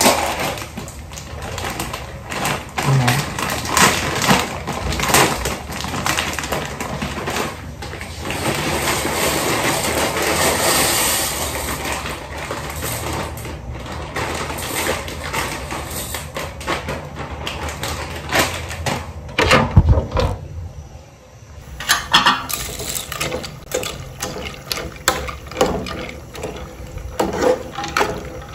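A plastic pasta packet crinkling and tearing, then dry pasta poured into a pot of boiling water and stirred, with irregular crackles and knocks throughout.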